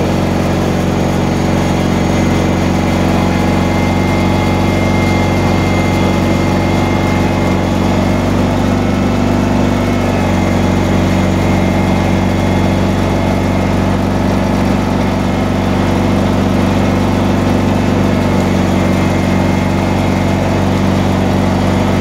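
John Deere 317 garden tractor engine running at a steady speed while the tractor pushes a front plow blade through snow.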